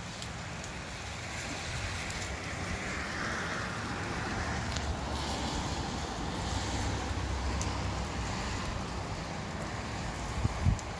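Rain shower with gusty wind: a steady rushing hiss that swells a little after about two seconds. A couple of sharp knocks near the end.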